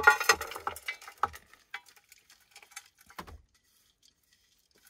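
Raw granola mix of oats, nuts and seeds being poured from a ceramic bowl into an air fryer basket, a wooden spoon scraping and knocking against the bowl to push it out. A dense clatter for about the first second and a half, then scattered taps that stop a little after three seconds in.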